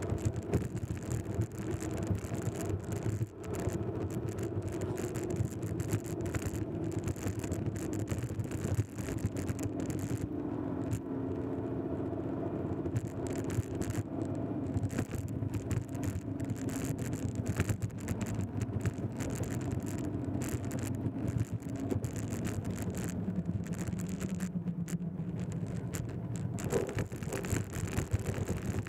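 A road vehicle on the move: steady engine and road noise whose pitch drifts up and down as the speed changes, with frequent small clicks and rattles.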